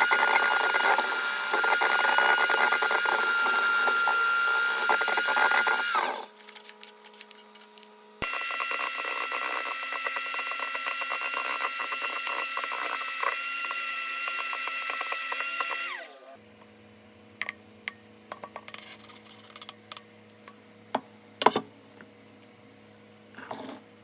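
Electric mixer whipping meringue in a bowl, running at a steady high whine for about six seconds, switched off, then run again for about eight seconds before stopping. Light clicks and taps follow after it stops.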